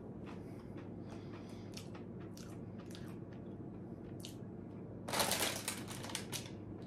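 Crisp crunching of fried gram-flour bhujia sev being chewed, as many small crackles. About five seconds in comes a louder, denser crinkling burst from the foil snack bag being handled.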